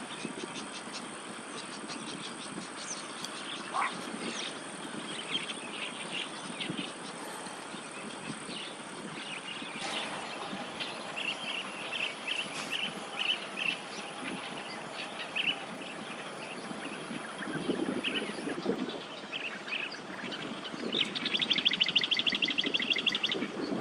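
Small birds chirping in short repeated calls over a steady high-pitched hiss and a low background rumble. Near the end comes a loud, fast rattling trill lasting about two seconds.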